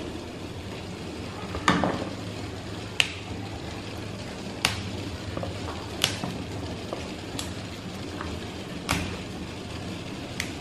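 Cauliflower florets being snapped off the head by hand over a wooden board: a sharp crack every second or two, about seven in all, over a steady background hiss.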